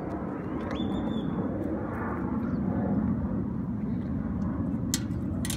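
Steady low outdoor rumble, with a short high-pitched chirp about a second in and a few sharp clicks near the end.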